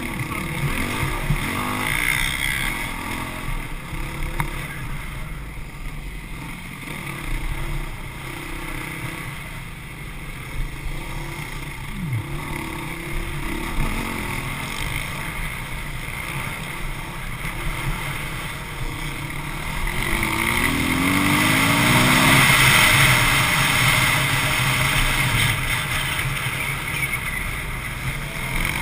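Dirt bike engine heard close up from the bike itself, running hard and rising and falling in pitch as the rider works the throttle over a dirt track. It grows louder for a few seconds about two-thirds of the way through.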